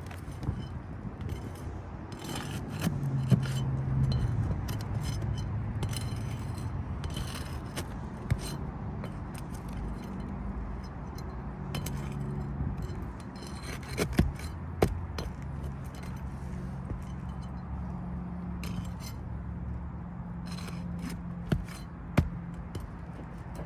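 Steel flat bar scraping and clinking against asphalt shingles and roofing nails as the shingle seals are broken and the nails pried out, with irregular sharp clicks and taps.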